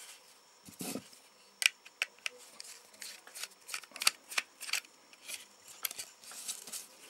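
Small irregular clicks and light scrapes of a small screwdriver and fingers working the plastic casing of a mobile phone as it is taken apart, several to the second.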